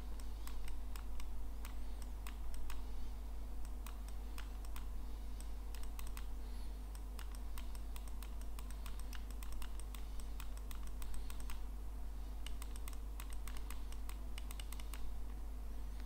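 Irregular clicks and taps at a computer, in quick runs now and then, over a steady low electrical hum.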